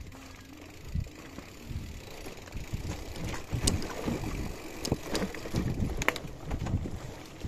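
Wind buffeting the microphone while riding a bicycle, getting stronger after about two seconds, with scattered sharp clicks and rattles.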